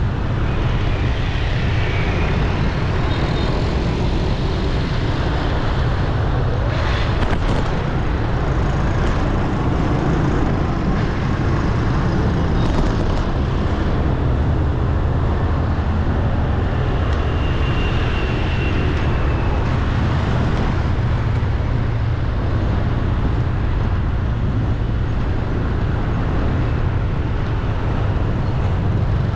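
Steady road traffic noise on a city street, with a constant low rumble.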